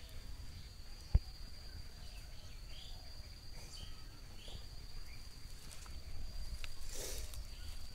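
Insects droning as one steady, high, unbroken tone, with a few short bird chirps in the middle. There is a single knock about a second in and a brief rustle near the end.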